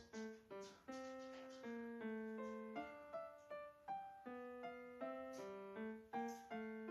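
Background piano music: a light melody of notes struck one after another, each fading before the next.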